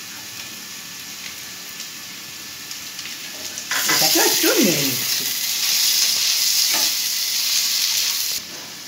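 Sliced onions sizzling in hot ghee in a pan. About four seconds in, the sizzling turns much louder and hissier as ginger-garlic paste goes in and is stirred with a spatula, then drops back suddenly near the end.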